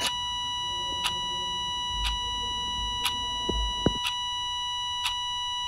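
A steady high-pitched electronic tone held without a break, with a sharp tick once a second like a clock. A few low thuds fall a little after the middle.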